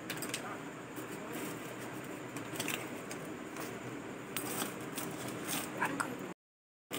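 Hand mixing crumbly flour and curd into dough in a stainless steel bowl: steady rustling and scrunching, with light clicks and jingles of glass bangles against the bowl. The sound cuts out completely for about half a second near the end.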